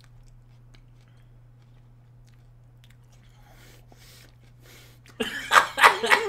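Raw onion being chewed with the mouth close to the microphone: faint crunches at first, then about five seconds in a quick run of loud, wet crunching bites.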